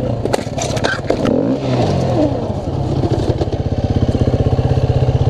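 KTM dirt bike engine idling with a steady, even pulse. Sharp knocks and clatter in the first second or so.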